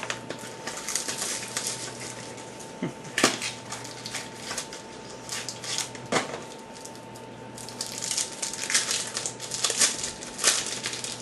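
Shiny foil trading-card pack wrapper crinkling and rustling in irregular bursts as it is pulled open by hand.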